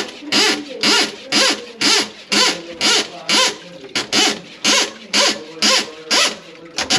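Sink plunger worked in quick strokes on a clogged kitchen sink drain, about two a second, each stroke a rushing gurgle of water and air forced through the blocked drain.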